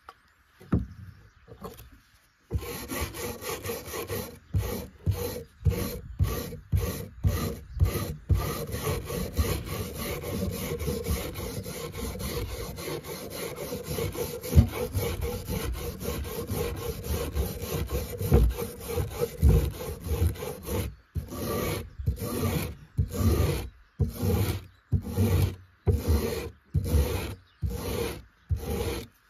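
Steel wire brush scrubbing rust off a grass-shear blade on a wooden board: rapid back-and-forth scratching strokes that start a couple of seconds in and, near the end, break into separate strokes about two a second.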